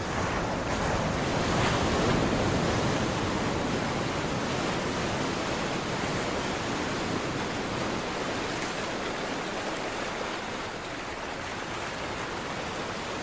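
Sea surf breaking on a sandy beach: a steady wash of waves, swelling slightly about two seconds in and easing a little toward the end.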